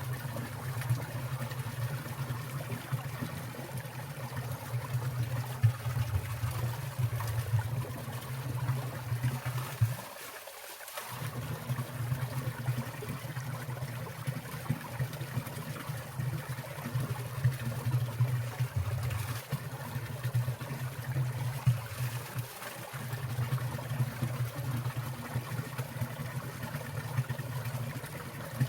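Winter mountain stream water trickling and splashing steadily, with water falling from icicles. The low rush briefly drops away about ten seconds in.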